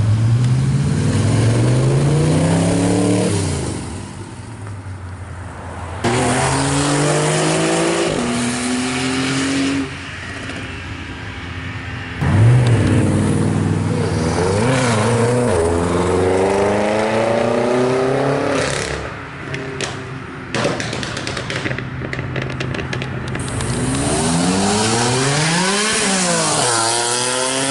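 Car engines accelerating hard past one after another in separate clips, each revving up with rising pitch and dropping back at each gear change. A dark BMW 6 Series coupe goes by around the middle. A red first-generation NSX passes near the end, its pitch rising and then falling as it goes by.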